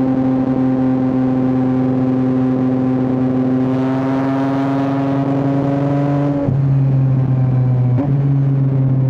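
Yamaha R9's three-cylinder engine pulling under steady throttle as the revs creep up slowly. It takes a quick up-shift with a brief drop in pitch about six and a half seconds in, and another near eight seconds.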